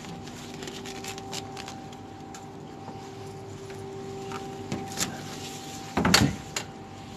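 Rummaging among plastic wheelie bins: light knocks and rustles, then a loud clatter about six seconds in as a food-waste bin lid is handled, over a steady low hum.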